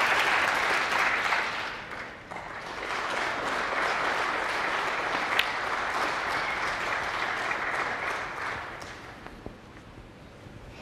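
Arena audience applauding, dipping briefly about two seconds in, swelling again, then dying away near the end. A single sharp click of cue tip on cue ball cuts through the applause about five seconds in.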